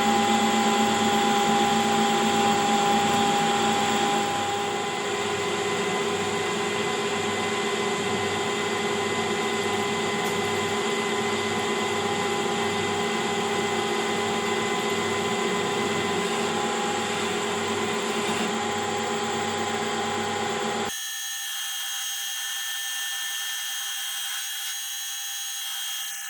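Metal lathe running steadily, turning a steel bolt blank at about 575 RPM with a cut of 1 mm depth. It cuts off abruptly about 21 seconds in, leaving a fainter high whine.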